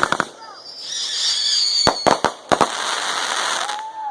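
Backyard consumer fireworks going off. A high whistle about a second in, then a quick string of sharp cracks. After the cracks comes a crackling hiss, and a whistle falls in pitch near the end.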